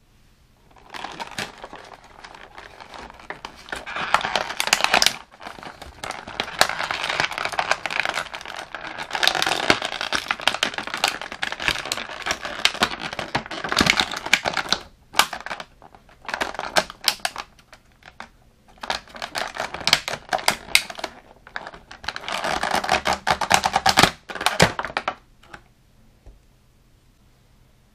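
Thin clear plastic packaging crinkling and crackling as an action figure is worked out of its blister tray and plastic sleeve, in long bursts with brief pauses, stopping a few seconds before the end.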